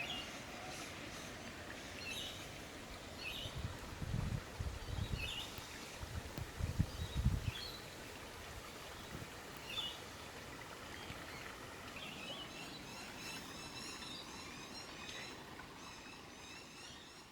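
Creek ambience: a steady hiss of running water with short bird chirps repeating about once a second. Low rumbles come around four and seven seconds in, and a fast, high chirping chorus joins from about twelve seconds on.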